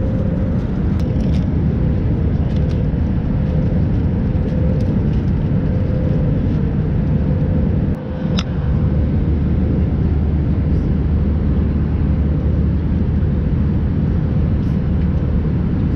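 Airbus A320-200 cabin noise at cruise: a steady, loud low roar of the engines and airflow, with a faint steady hum on top. The level drops briefly about halfway through.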